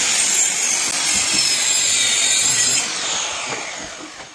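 A woodworking power tool running with a loud, steady, hissing noise, which fades out about three seconds in.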